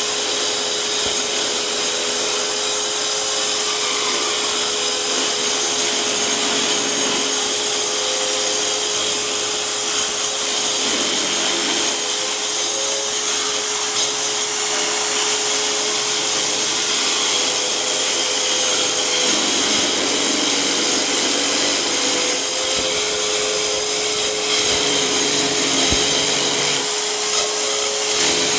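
Hyper Tough AQ10024 4.5-inch mini circular saw running and cutting, a steady motor whine over the noise of the blade with no break.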